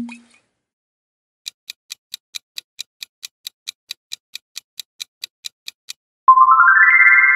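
Quiz countdown timer sound effect: steady clock-like ticking, about four to five ticks a second for some four seconds, while the answer bar fills. A bright chime follows, stepping quickly upward and ringing on, marking the time-up and the answer reveal.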